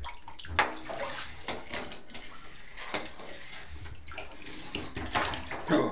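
Bath water splashing and sloshing as a small child plays with toys in a bathtub, with many short sharp knocks and splashes throughout.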